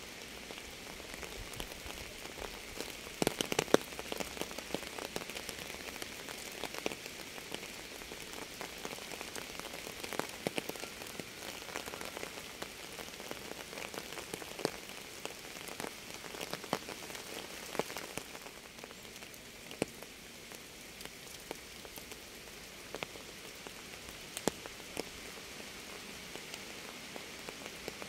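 Steady rain with a soft hiss and many separate drops ticking on a surface close by. A cluster of louder drops comes about three seconds in.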